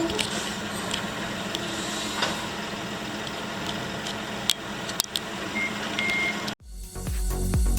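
BMW B38A15A 1.5-litre three-cylinder turbo petrol engine running at idle, steady with a few light clicks, and two short high beeps near the end. About 6.6 s in the engine sound cuts off abruptly and electronic dance music starts.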